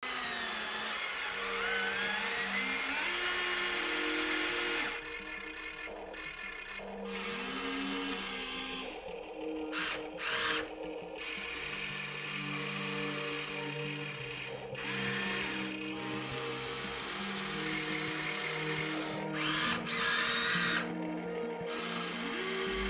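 Small electric motors of a remote-control toy excavator whining as the arm and bucket move, stopping and starting several times with the pitch rising as they speed up. Simple background music plays underneath.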